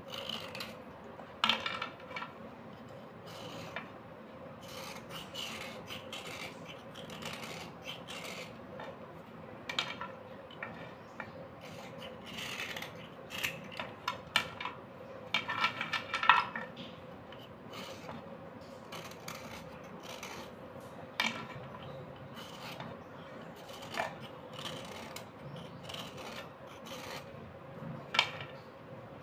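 Knife blade scraping along a slate pencil, a steady dry rasping with scattered sharp clicks that are loudest around the middle.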